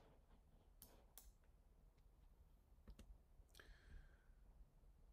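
Near silence: faint room tone with a few soft, separate clicks from computer input, mouse button and keys, as objects are picked in the software.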